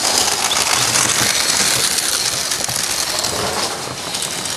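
Dog sled passing close, its runners crunching and scraping over packed snow in a steady gritty hiss.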